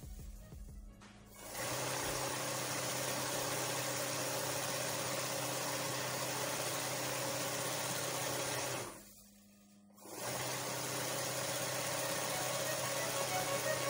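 Sewing machine running steadily while fabric is guided under the needle for freehand embroidery, stopping briefly twice, right at the start and again about nine seconds in.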